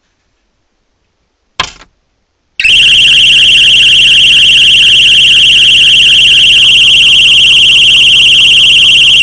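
Viper 5902 car alarm's high-power piezo interior siren sounding a loud, steady, high-pitched tone that starts abruptly about two and a half seconds in. A short sharp chirp comes about a second before it.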